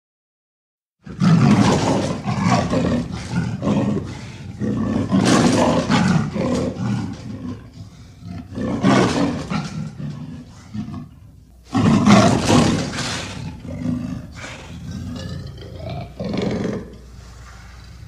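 Big cat roaring and growling in several loud bouts, starting about a second in, with weaker calls near the end. It is a sound effect meant as the voice of the extinct cave leopard.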